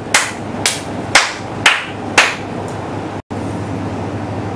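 One person clapping hands, five sharp claps at about two a second. After a sudden cut, a steady low hum.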